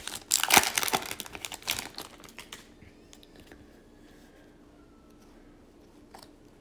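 An Upper Deck Series 2 hockey card pack's foil wrapper crinkling and crackling as it is torn open and the cards are pulled out. The crinkling stops about two and a half seconds in, leaving only a few faint clicks of the cards being handled.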